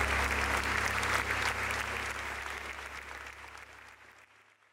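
Audience applauding, with a low steady tone underneath, fading out steadily until it is gone near the end.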